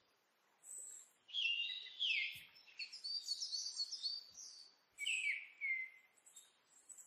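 Birds singing in short phrases of quick chirps and falling whistles, with brief pauses between the phrases.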